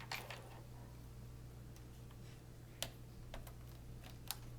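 A few scattered, sharp plastic clicks from work on a laptop's keyboard area, a small cluster at the start and single clicks at intervals after, over a steady low hum.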